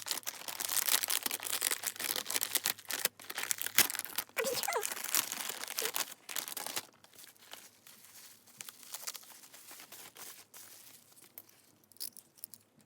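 Plastic packaging crinkling and tearing as it is handled and torn open, busy for about seven seconds and then fainter. A short wavering whine is heard about four and a half seconds in.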